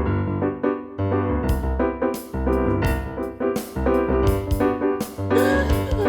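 Instrumental song introduction: piano or keyboard chords over a bass line, with drums and cymbals coming in about a second and a half in and keeping a steady beat.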